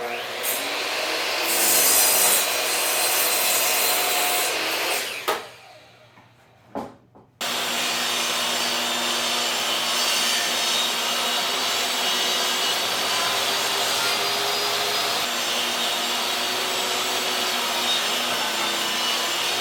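Power saw cutting through a rough-cut white pine board in two long, steady passes, with a short pause and a couple of clicks about five to seven seconds in.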